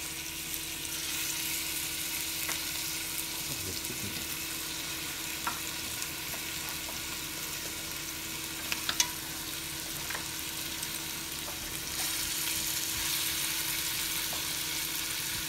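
Curry-seasoned chicken drumsticks sizzling in hot oil in a stainless steel pot, frying with onions and scallions as pieces are added. The sizzle is a steady hiss that grows a little louder near the end, with a few light clicks.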